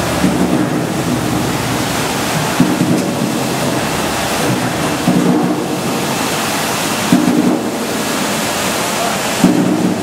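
Commercial apple washing machine running: water rushing and splashing in its stainless-steel wash tank, a loud steady noise. A low pitched sound rises above it and fades about every two and a half seconds.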